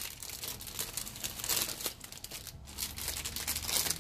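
Thin plastic parts bag crinkling and rustling as a plastic model-kit runner is handled and pulled out of it, with louder rustles about a second and a half in and again near the end.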